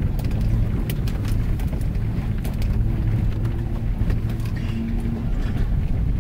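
Cadillac Escalade heard from inside its cabin, driving slowly over a gravel track: steady low engine and tyre rumble with frequent sharp clicks and ticks.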